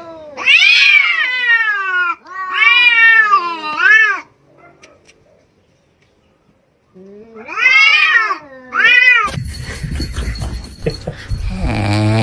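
Cat meowing loudly in long, drawn-out yowls that rise and fall in pitch: about four in a row, a pause of roughly three seconds, then two more. Near the end a different, noisier sound takes over.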